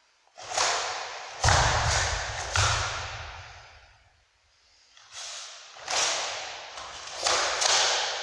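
Karate kata: the cotton gi snaps sharply with each strike, along with forceful breaths, in two bursts of four or five moves with a pause between. Each snap dies away in a long echo.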